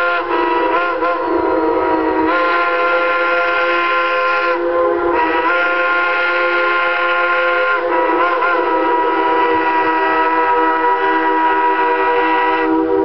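Steam locomotive whistle, likely Shay No. 11's, blowing one long continuous blast of several notes at once, with brief wavers in pitch about a second in and again past the middle.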